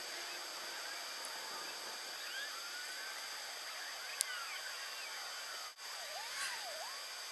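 Small birds chirping with short, quick calls over a steady outdoor hiss. There is a single sharp click about four seconds in and a brief drop-out of the sound near six seconds.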